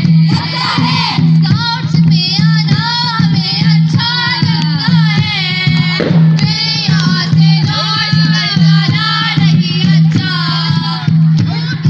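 Several high female voices singing a song together over music with a steady, pulsing low beat.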